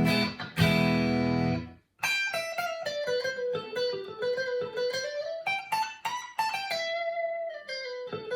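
Clean electric guitar, a Stratocaster through a 1980 Fender Pro Reverb amp with a B6K compressor pedal in the chain. Two strummed chords, a brief pause, then a single-note melodic line of picked notes.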